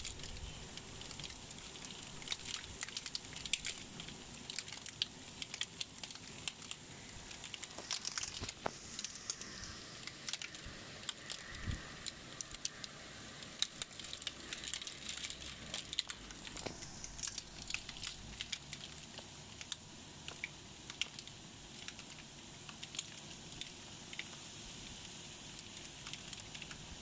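Hail falling: many small hailstones striking hard surfaces as a dense, irregular patter of sharp clicks over a steady hiss.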